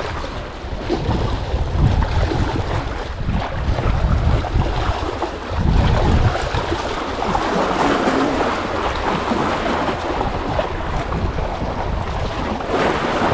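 Wind buffeting the microphone in gusts, over sea waves washing against shoreline rocks.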